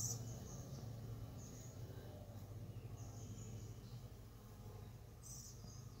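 Honey bees buzzing in flight around the hive entrance, a low fluttering hum that slowly grows fainter. Faint short bird chirps come through a few times.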